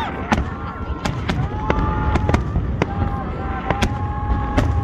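Aerial fireworks bursting in quick succession, sharp bangs and crackles about twice a second over a steady low rumble.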